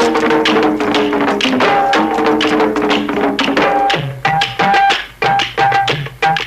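Background music with quick hand-drum strokes over held melody notes; about four seconds in, the drumming comes forward as a clear, choppy beat.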